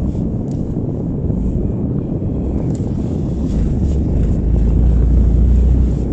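Car exhaust blowing through a broken flexi joint with the engine running: a loud, rough low rumble that swells louder for a second or so near the end, then eases back.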